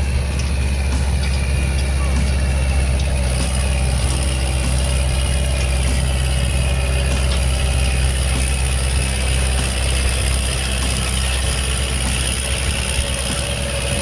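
Kubota L5018 diesel tractor engine running steadily.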